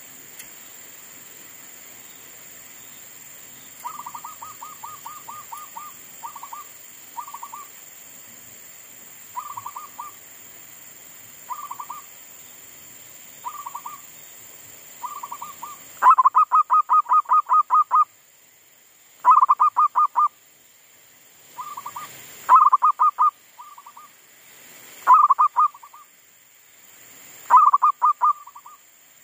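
Zebra dove (perkutut) cooing in bouts of rapid staccato notes, several notes a second. The bouts are faint at first, starting about four seconds in, and become much louder from about halfway through, repeating every few seconds.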